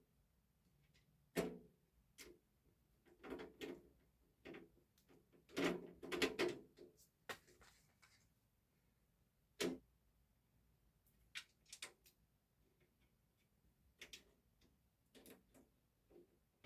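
Irregular clicks and knocks of case fans and screws being handled and fitted into a PC case, some sharper than others.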